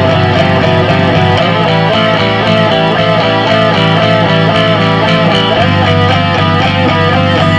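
Background music: guitar playing a fast repeating run of notes over a steady low bass. The bass note shifts about a second and a half in and again later on.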